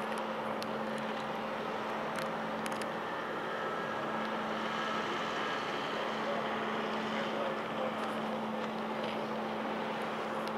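Steady drone of a departing cruise ship's machinery and funnel exhaust heard across the harbour: a constant hum over a broad, even rushing, with a few faint ticks.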